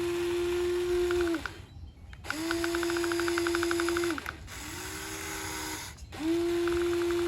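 Small electric motors and servos of a toy RC excavator whining in runs of one to two seconds, stopping and starting as the machine moves. There are four runs, the third weaker and lower in pitch, with a fast, faint clicking of gears over some of them.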